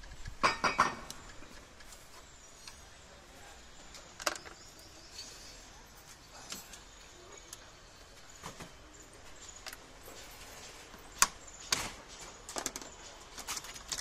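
Scattered clicks and knocks of plastic door trim and screws as a car's inner door panel is taken off with a screwdriver and by hand. The loudest cluster of knocks comes about half a second in, with single clicks spread through the middle and a quick run of them near the end.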